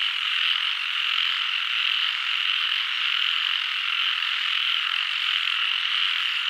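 A steady chorus of many frogs calling at once, a dense, unbroken, high-pitched din.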